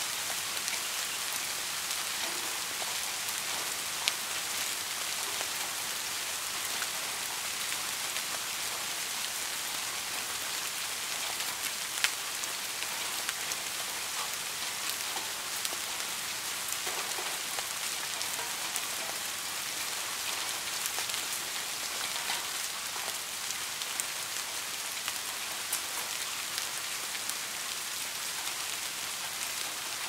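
Steady rain falling on leaves: an even hiss with many small drop ticks scattered through it, and two sharper, louder drop hits about four and twelve seconds in.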